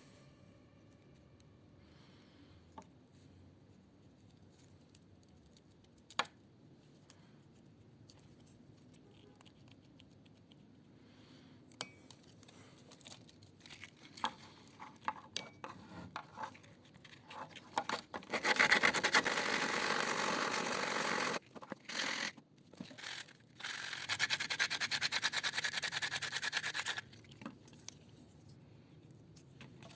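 Two spells of steady scraping or rubbing, each about three seconds long, with scattered small clicks and knocks before them.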